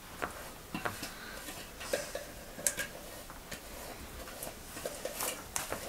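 Spatula scraping and tapping against a stainless steel mixer-grinder jar as thick ground-rice batter is scraped out into a steel bowl: scattered light clicks and scrapes at an uneven pace.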